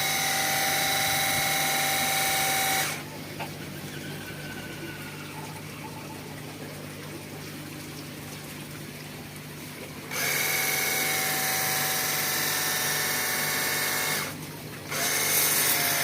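Cordless battery-powered high-pressure washer gun running: its electric motor-pump gives a steady whine over the hiss of the water jet. It stops for about seven seconds after the first three, starts again, and cuts out briefly once more near the end.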